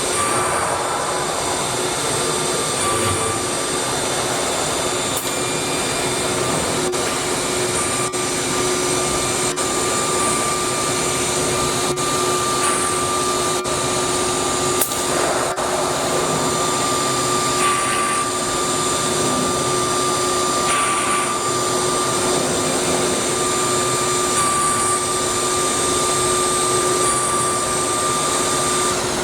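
1325 ATC CNC router's spindle running with a steady whine over a continuous rushing noise as it works, the sound shifting slightly every few seconds.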